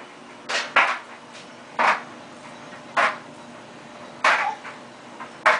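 Dishes clattering as they are put into a dishwasher: six short sharp knocks, about one a second.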